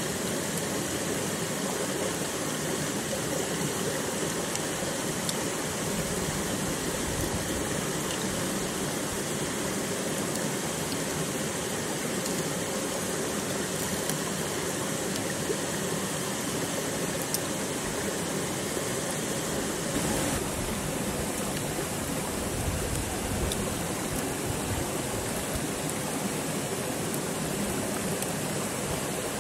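Steady rush of running water from a stream, with a few faint ticks.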